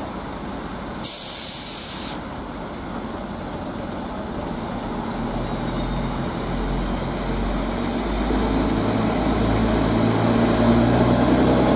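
A Network Rail Multi-Purpose Vehicle on a railhead treatment run approaching and passing, its diesel engine drone growing steadily louder over the second half. About a second in, a brief hiss of released air lasts about a second.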